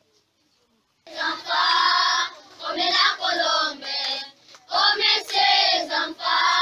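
About a second of near silence, then a group of schoolchildren singing together, in phrases with short breaks between them.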